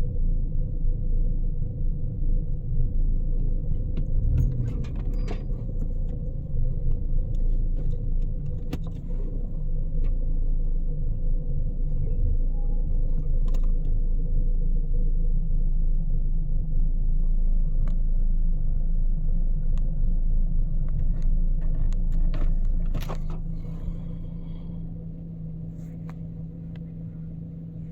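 Car engine running with a low, uneven rumble while it has an ignition misfire logged on cylinders 2 and 4, before the ignition coil is replaced. About 23 seconds in it drops in level and settles into a steadier hum.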